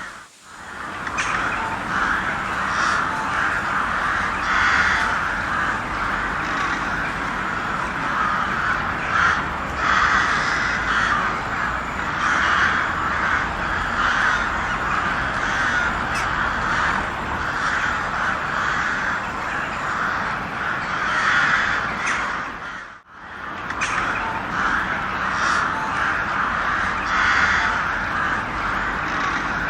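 A flock of crows cawing, many harsh calls overlapping without pause. The calls break off for a moment twice, just at the start and about two-thirds of the way through.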